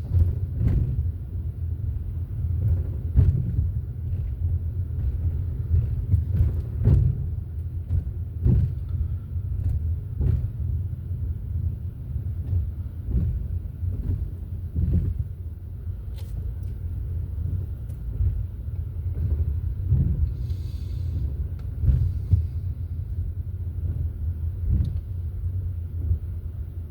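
Low, steady rumble of a car driving, heard from inside the cabin, with frequent short knocks.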